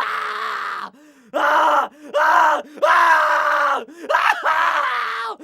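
A terrified, tortured person crying out in pain: a run of about six strained cries and groans, one after another with short breaks. Each rises and then falls in pitch, and the longest lasts about a second.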